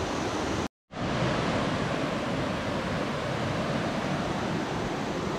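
River current rushing steadily over rocks and through a riffle, cut by a brief drop to silence a little under a second in.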